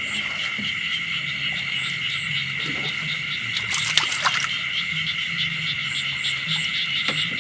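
Night insect chorus, a steady high-pitched trill, over a low steady hum, with a few sharp clicks about four seconds in.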